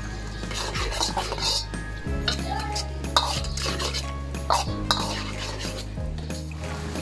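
Metal wok spatula scraping and clanking against a wok while stirring vegetables in a thickening sauce, with irregular knocks, the loudest a little past the middle.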